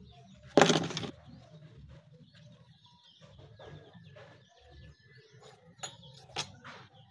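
A brief loud rasping burst about half a second in, then scattered light clicks and knocks of hand tools on metal, with faint birds chirping in the background.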